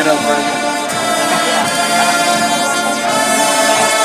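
Marching band brass section playing long, held chords.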